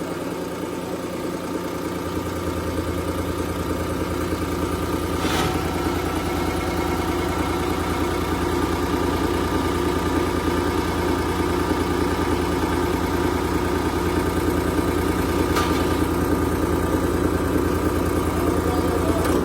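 Rotary diesel fuel injection pump running on a test bench: a steady mechanical hum that gets a little louder and deeper about two seconds in, with two short sharp clicks.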